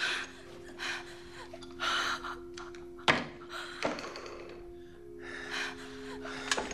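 Short, heavy gasping breaths, one every second or so, over a low sustained music drone, with a sharp thud about three seconds in.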